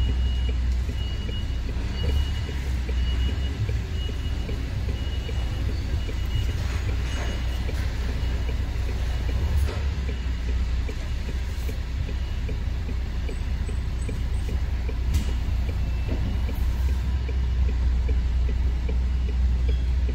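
Lorry's diesel engine running with a steady low rumble as the truck reverses slowly, with a reversing alarm beeping repeatedly over the first few seconds before it fades out.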